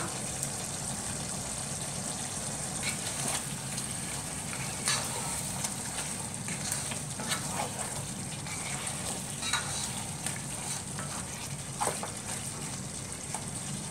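Chicken curry simmering and sizzling in a non-stick pot as a wooden spatula stirs it, with a steady sizzle and scattered scrapes and taps of the spatula against the pot.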